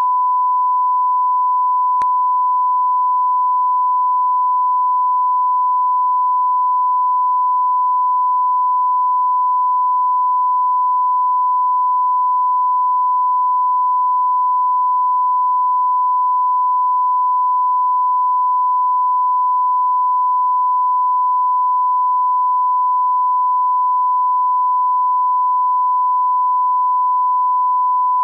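Television line-up test tone: one steady, unbroken sine-wave beep at the standard 1 kHz reference pitch, the tone that goes with colour bars. A faint click comes about two seconds in.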